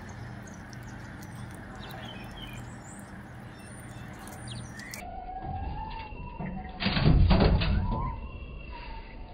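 Squirrels scuffling on a window ledge: a short burst of loud thumping and scrabbling about seven seconds in as one squirrel rushes in and chases another off, with a few faint chirps just before it.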